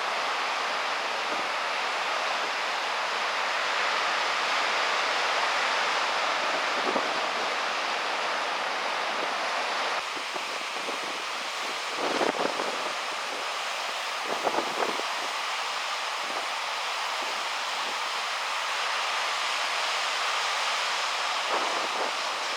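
Steady rushing hiss of wind on the microphone and ocean surf, with a few short low buffets of wind about halfway through.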